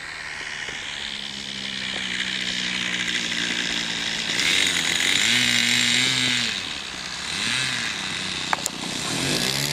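Radio-controlled float plane's engine running at low throttle as the model slides across snow on its floats, its pitch rising and falling several times with throttle blips. A louder rushing stretch swells in the middle, and there is a short sharp click near the end.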